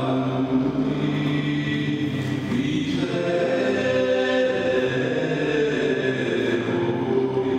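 Chanted mantra music: several voices singing together in long held notes, moving to new notes about three seconds in.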